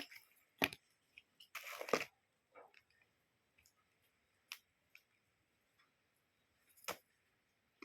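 Handling noises from a smartwatch and its packaging: a few sharp clicks spread through, and a short rustle about two seconds in, with quiet between.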